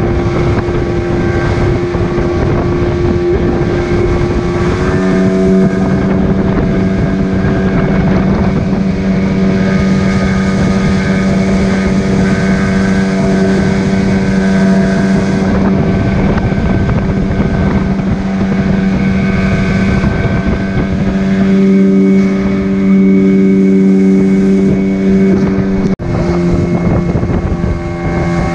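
Small wooden boat's engine running steadily under way, with a rush of wind and water. Its pitch rises a little about five seconds in, and there is a brief dropout near the end.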